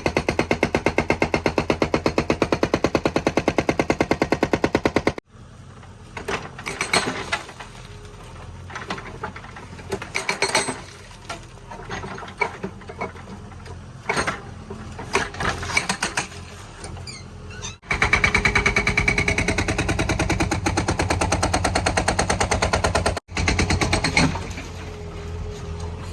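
Hydraulic breaker on a JCB 3DX backhoe hammering brick masonry in rapid, even blows. Twice it cuts to quieter stretches of scattered, irregular knocks and clatter.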